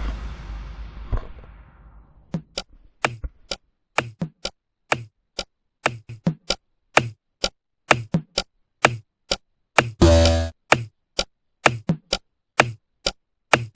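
A string of short, sharp knocks, about two a second and unevenly spaced, some with a low thud, starting after a ringing tail dies away. A longer noisy burst comes a little past ten seconds in.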